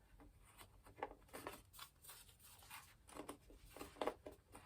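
Faint handling noises: a scattering of light rustles and small clicks as the foam model's plastic fin parts are picked up and fitted by hand.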